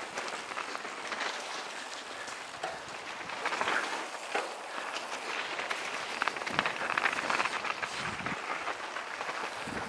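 Mountain bike tyres rolling fast over a dry, leaf-strewn dirt trail: a steady crackling rustle of dry leaves and dirt, with many scattered small clicks.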